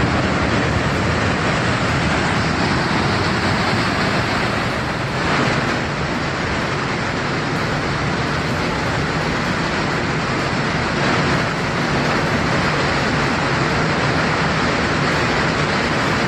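Landslide on a steep mountainside, rock and debris pouring down the slope in a steady, unbroken rush and rumble.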